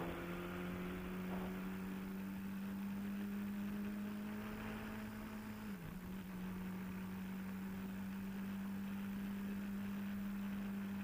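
Motorcycle engine and road noise heard through a Bluetooth helmet microphone, a steady low drone that dips briefly in pitch about six seconds in and then settles again.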